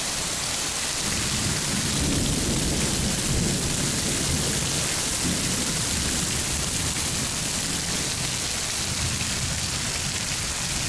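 Heavy downpour: steady rain hissing onto wet paving and a porch roof, with thunder rumbling low underneath. The rumble swells about a second in and again near the end.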